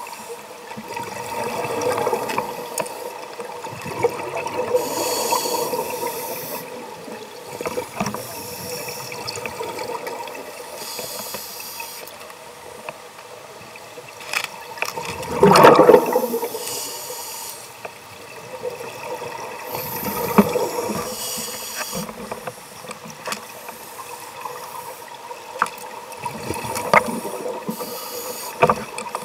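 Scuba divers' regulator breathing heard underwater through a camera housing: hissing inhalations and gurgling rushes of exhaled bubbles every few seconds, with one louder burst of bubbles about halfway. Small clicks and knocks of the housing being handled.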